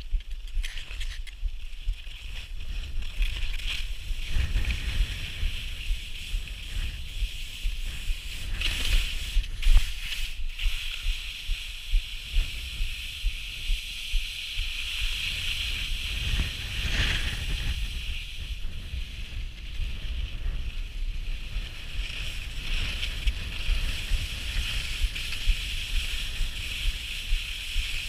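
Skis sliding and scraping over snow, a continuous hiss that swells and eases with the turns, with wind buffeting the body-worn camera's microphone as a low rumble.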